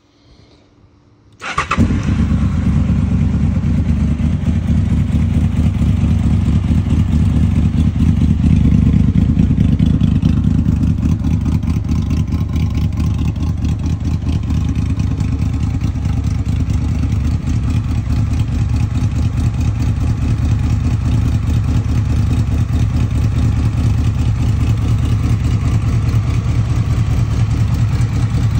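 A 2002 Honda VFR800's V4 engine starts cold about a second and a half in, then idles steadily through a Delkevic full aftermarket exhaust while it warms up.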